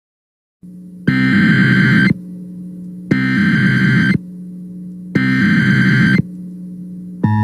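Emergency Alert System SAME header: three loud bursts of screeching digital data tones, each about a second long and about a second apart, over a low steady hum. The steady EAS attention tone starts just at the end. This tone sequence opens a new tornado warning broadcast.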